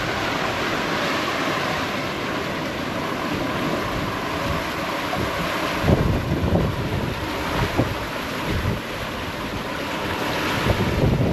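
Strong wind and breaking waves rushing past a sailboat under way in rough seas, with wind buffeting the microphone in gusts about six seconds in and again near the end.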